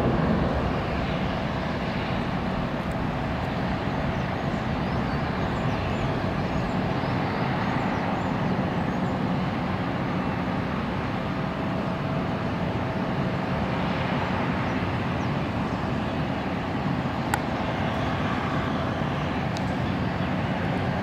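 Airbus A350-900 jet airliner's twin Rolls-Royce Trent XWB turbofans at takeoff thrust, a steady rumble as the aircraft rotates and climbs away.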